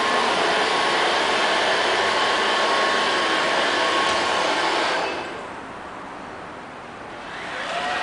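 Robot vacuum cleaner's suction fan running with a steady whooshing whir, dropping to a quieter level about five seconds in and rising again near the end.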